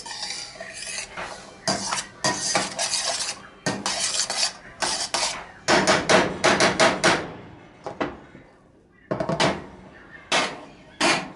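A utensil scraping and clattering against a stainless steel pan as diced onions and peppers are stirred, in quick repeated strokes for about seven seconds, then a few separate knocks near the end.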